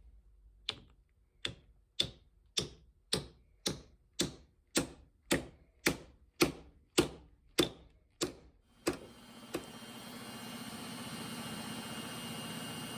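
Hammer blows in a steady rhythm, about fifteen sharp strikes a little under two a second, each with a short ring. About nine seconds in they stop and a steady motor starts running.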